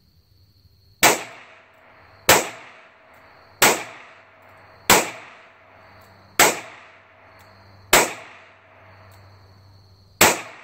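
Seven .22 Short rounds fired from an Iver Johnson Safety Automatic 3rd Model, a double-action break-top revolver. The sharp cracks come about one every 1.3 seconds, with a longer pause before the seventh, and each is followed by a short echoing tail.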